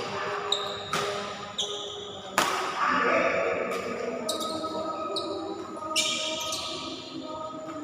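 Badminton rally: sharp racket strikes on a shuttlecock, about three in a few seconds, with repeated short squeaks of shoes on the court floor, echoing in a large hall.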